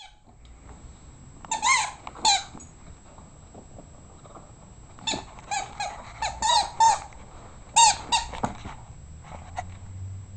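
A dog biting a rubber chicken squeak toy, which gives short, high squeaks in clusters. There are two squeaks about a second and a half in, a quick run of them from about five to seven seconds, and a few more around eight seconds.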